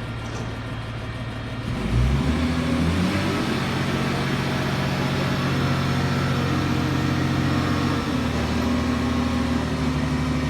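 A crane's engine running, revving up about two seconds in and then holding a steady higher speed, easing off slightly near the end.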